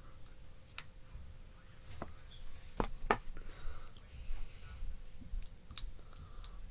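Hands handling packaging during an unboxing: a handful of sharp clicks, two close together about three seconds in, with faint rustling between them.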